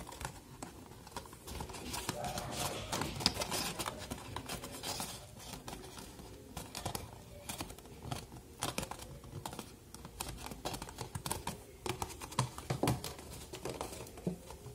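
Cardstock handled by hands as glued edges of a paper box are pressed together: irregular soft crinkles, rustles and small taps of the card.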